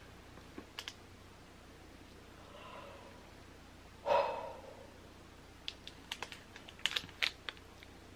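Scattered sharp clicks and ticks of a plastic FiGPiN pin case being handled, bunched together in the second half. About four seconds in there is one short, excited vocal exclamation.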